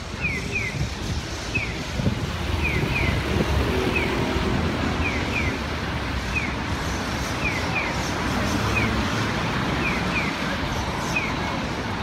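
Steady street traffic rumble, with the electronic bird-like chirping of a Japanese pedestrian crossing signal: a pair of short falling chirps, then a single one, repeating about every two and a half seconds.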